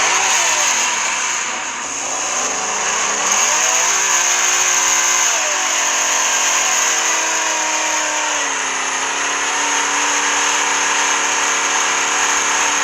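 Diesel engine revving hard during a burnout, over a loud steady hiss of spinning tyres. The revs dip and climb over the first few seconds, then hold high.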